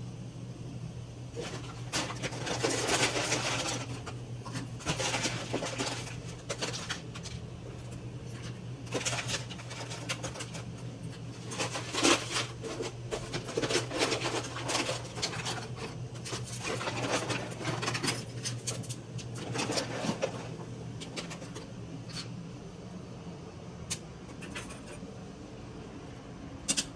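Kitchen food-prep sounds: intermittent handling noises and a few sharp knocks or clicks over a steady low hum.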